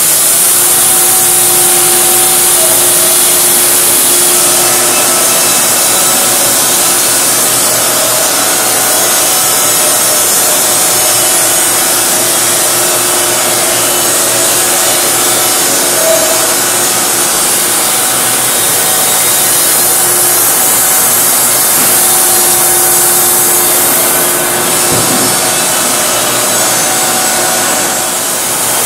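Wood-Mizer LT50 band sawmill sawing through a box elder log: the band blade cutting with the sawhead's electric motor running steadily, a loud, even machine sound with a bright hiss and a steady hum.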